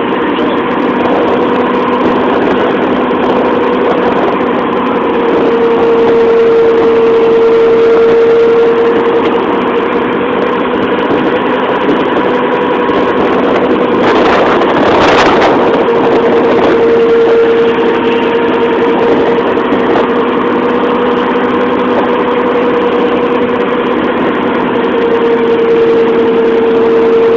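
A boat's engine running steadily with a constant droning hum, heard from on board. About halfway through there is a brief rush of noise.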